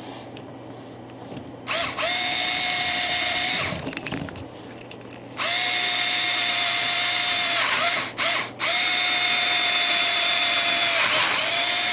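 Electric drill running in three runs of a few seconds each, with a steady motor whine, drilling holes through the plastic housing of an ice machine's ice thickness sensor. It stops briefly twice, about 4 and 8 seconds in.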